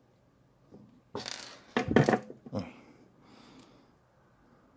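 A few short clattering and rustling sounds of handling on a workbench, as the soldering iron is set down and a small circuit board is picked up, loudest about two seconds in. A faint hiss follows.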